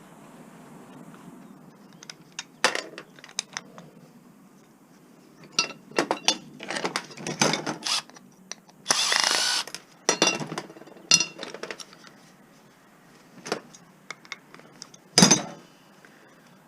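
Metal clicks and clanks of hand tools and scrap parts being handled while a piece of scrap is taken apart, with a short rasping burst about nine seconds in and a sharp knock near the end.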